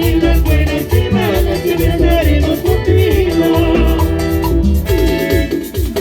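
Latin dance music with a steady pulsing bass beat and melodic instrumental lines, in the style the MC calls the music of Cayambe.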